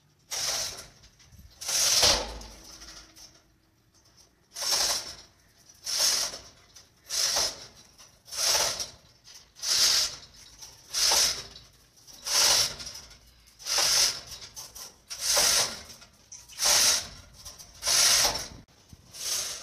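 Manual chain block worked by hand, with its chain running through the hoist in a short burst at each pull, about one every second and a half, as the elevator car is hoisted up the shaft.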